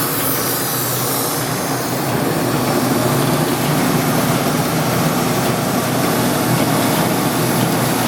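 Strippit/Timesaver 25-inch wide belt sander with a 10 hp three-phase motor running steadily, with a piece of flat steel being fed through it and sanded. A continuous dense whir with a steady low hum, rising slightly about two seconds in.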